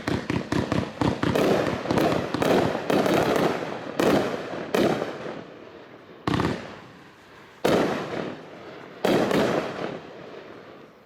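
Patriotic Wave consumer fireworks cake firing. It starts with a quick run of sharp reports, several a second, then a thicker spell of bangs. After about 4 s come five louder single reports, spaced a second or more apart, each fading out over a second or so.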